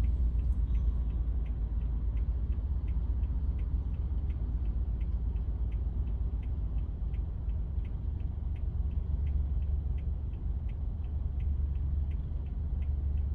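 Car idling at a standstill, a steady low rumble heard inside the cabin, with a light, even ticking about two and a half times a second.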